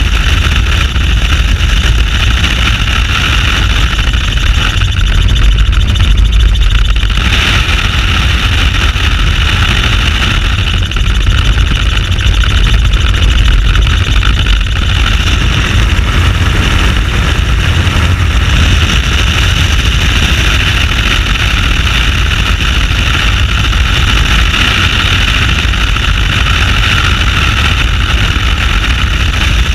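Helicopter in flight, heard from inside an open cabin: steady rotor and engine noise under a heavy low rumble of wind on the microphone. The higher hiss grows louder about seven seconds in.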